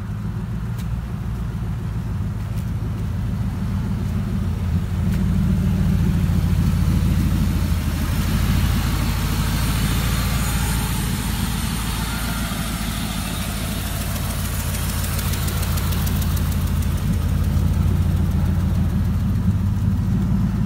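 V8 engine of a 1946 Ford pickup hot rod, with heat-wrapped headers, idling steadily with a low rumble that grows louder about five seconds in.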